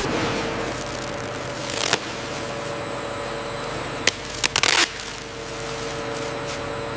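Steady factory machinery noise with a constant hum, broken by a few short hissing bursts about two seconds in and again around four to five seconds in.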